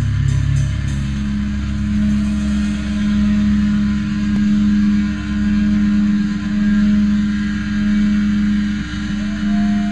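Amplified electric guitar holding a sustained droning note through the amp, swelling and fading about once a second, with a higher tone sliding in near the end.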